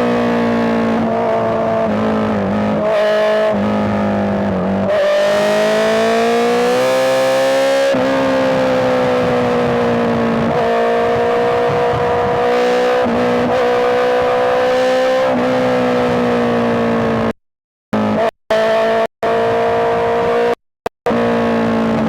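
Honda CBR650R's inline-four engine running at high revs while riding. Its pitch climbs through a gear for a few seconds, drops at an upshift, then holds fairly steady. In the last few seconds the sound is chopped off several times into sudden silences.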